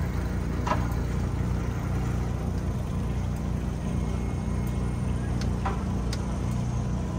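Boat engine idling steadily with an even low hum.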